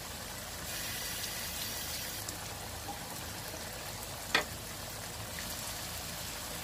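Boneless chicken in a thick tomato-and-lemon sauce sizzling gently in a non-stick wok, a soft steady crackle. One short sharp click comes a little past four seconds in.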